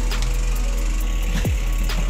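Background music: an electronic beat with a constant deep bass, held synth notes, crisp high percussion and drum hits that drop quickly in pitch, a few per second.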